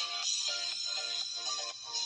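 Background music: a tune of short repeated notes in a steady rhythm.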